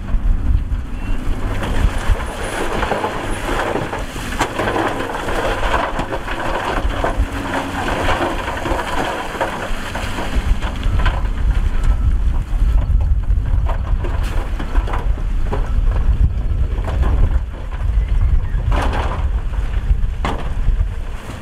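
Steady low rumble of heavy diesel machinery, a dump truck and a wheel loader, with wind buffeting the microphone. Near the end, loose rock tumbles out of the truck's raised bed in a few sharp clatters.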